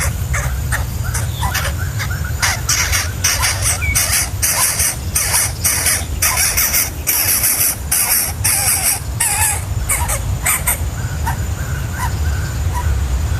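Birds giving a rapid, irregular series of short, harsh calls, thickest through the middle of the stretch and thinning out near the end, over a steady low hum.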